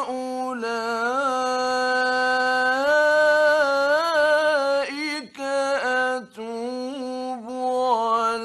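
Male Quran reciter in the melodic mujawwad style, holding long ornamented notes, the pitch wavering and gliding between held tones; the voice breaks off briefly twice about five to six seconds in, then carries on. Old Egyptian radio recording.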